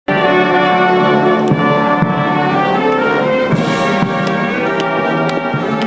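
Military brass band playing a slow, solemn piece in long held chords.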